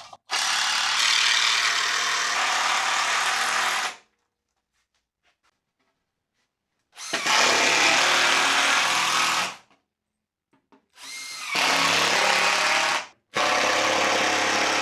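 Power drill driving screws into a wooden frame, running in four separate spells of about two to four seconds each with short pauses between them.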